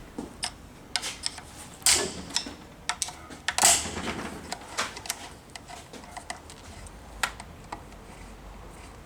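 Irregular metallic clicks and knocks of a hand tool and parts being handled on an opened automatic transmission, with two louder clanks about two seconds and three and a half seconds in.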